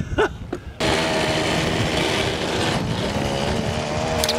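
Go-kart's small gasoline engine running loud and steady, cutting in abruptly about a second in, with a short burst of voice just before.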